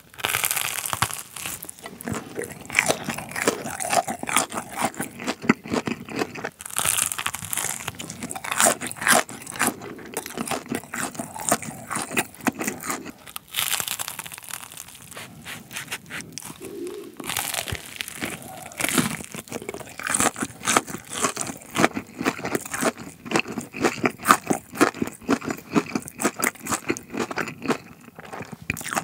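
Close-miked crunching of a fried Korean corn dog's crisp batter crust, bitten and chewed over and over, with louder clusters of crunches every few seconds.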